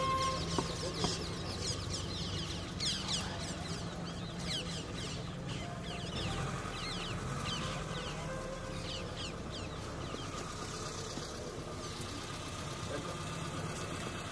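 Many birds chirping in short, quick falling calls that thin out after about ten seconds, over a steady low engine hum.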